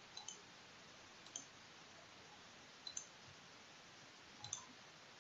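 Faint computer mouse clicks against near silence: four short clicking moments about a second and a half apart, most of them a quick pair of clicks.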